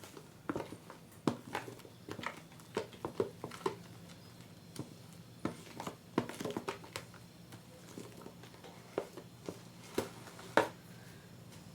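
Kitchen utensils clicking and knocking irregularly, many short sharp taps, over a steady low hum.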